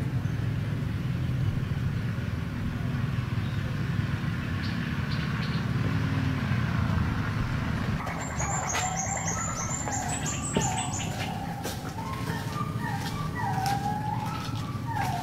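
A steady low rumble. From about eight seconds in, birds chirp in a quick run of short falling notes at several pitches, with scattered sharp clicks.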